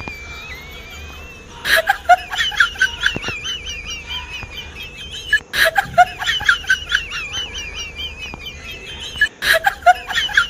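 A looped comic sound effect of high, wavering, cackling laughter. It repeats about every four seconds, and each round opens with a sharp click followed by quick pulsing cackles.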